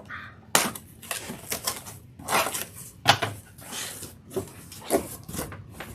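Vinyl record sleeves being handled and flipped through: irregular sharp clicks, taps and short rustling scrapes of cardboard jackets against each other.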